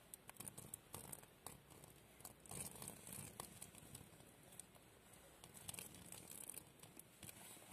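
Faint spattering and crackling of boiling water being poured over the rubber sealing ring of a plastic sewer pipe, heating it to soften it. It comes as irregular small clicks, with short hissing spells about two and a half seconds in and again around six seconds.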